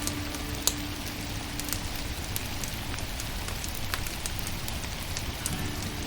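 Firewood fire crackling: a steady hiss with scattered sharp pops and snaps.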